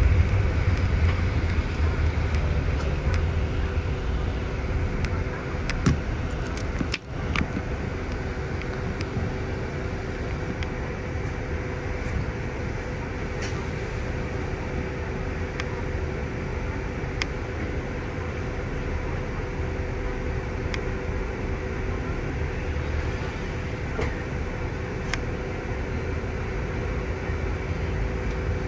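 Inside a city bus: engine and road rumble easing in the first few seconds as the bus slows, then the bus standing with a steady engine and air-conditioning hum and a faint steady whine.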